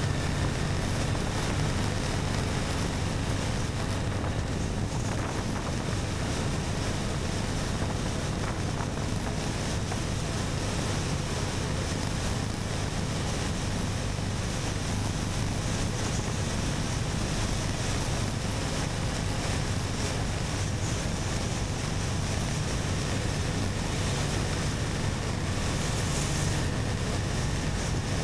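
Steady wind rush buffeting the microphone of a camera on a moving motorcycle, with the engine's even low drone underneath.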